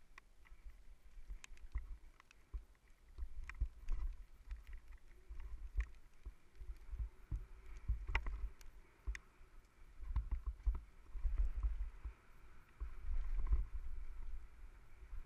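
Downhill mountain bike running fast down a dirt trail, heard from a helmet-mounted camera: a low, gusting rumble of wind and trail bumps, with scattered sharp clicks and knocks of the bike clattering over the ground.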